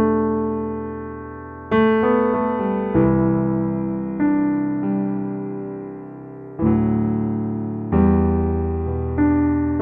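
Kurzweil PC4 keyboard playing a piano-type patch: a slow series of chords, each struck and left to fade, about seven in all.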